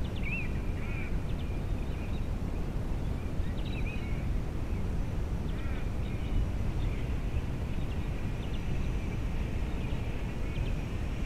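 Wind rumbling on the microphone, with birds chirping in short calls on and off.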